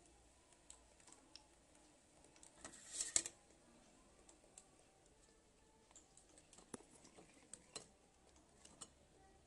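Faint clicks and light taps of a perforated metal skimmer against the pot and a wire-mesh strainer as honey-soaked pastries are lifted out to drain, with a louder cluster of clicks about three seconds in.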